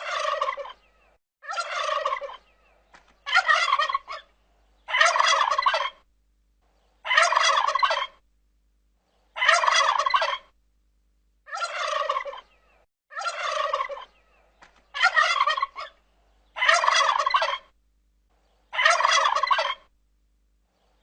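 Turkey gobbling over and over: about eleven gobbles of roughly a second each, evenly spaced with short silences between, looping as a ringtone.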